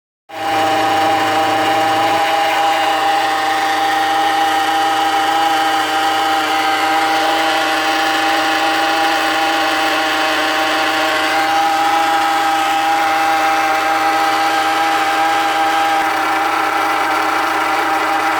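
Great Wall Hover H3 running at idle with a steady whining hum held at a fixed pitch, which the owner suspects is the power steering pump.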